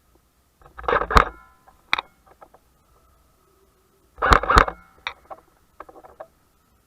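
Airsoft electric rifle firing two short bursts, about three seconds apart, with a few lighter clicks around them.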